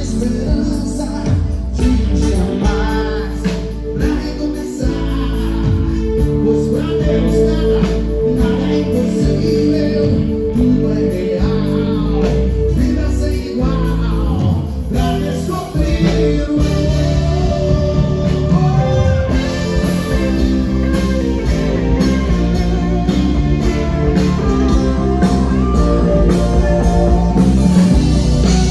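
Live gospel band playing through a stage PA: a male lead singer over electric guitars, bass and drums.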